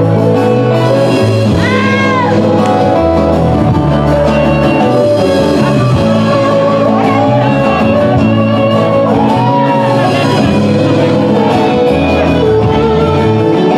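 A live band plays, with acoustic and electric guitars over changing bass notes and a singer's voice gliding up and down on held notes.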